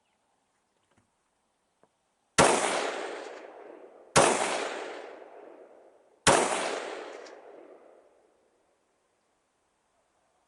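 Three rifle shots, slowly and evenly paced about two seconds apart, each followed by a long echo that trails away.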